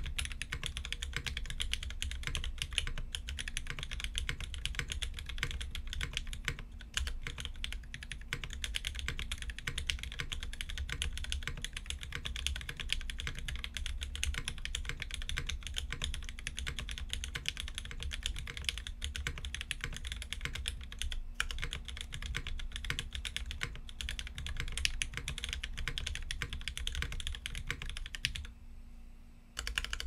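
Fast continuous typing on an F2-84 mechanical keyboard with lubed, linear Cherry MX Black switches fitted with 65 g springs, in an aluminium plate, under GMK keycaps. The keystrokes pause briefly about a second and a half before the end, then resume.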